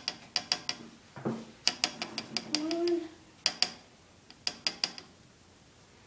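Light, sharp clicks of a nail polish brush tapping against the rim of a plastic cup of water and the neck of the bottle. The clicks come in quick runs of two to four, about four runs with short pauses between them.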